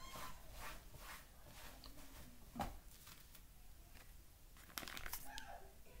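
Quiet crinkling and rustling of a paper bag of cornstarch as it is handled and eaten from, with scattered faint clicks and crunches, the sharpest a little over halfway through.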